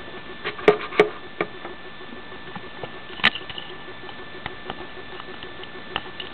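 Handling noise: a few sharp clicks and light knocks, the loudest about a second in and another after three seconds, over a steady hiss with faint constant tones.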